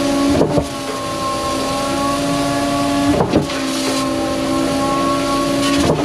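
Putzmeister 40Z concrete boom pump truck running steadily, its concrete pump stroking in forward with a brief changeover sound about every two and a half to three seconds, three times, as the cylinders switch. A hose sprays water into the hopper and up into the cylinders to wet them before priming.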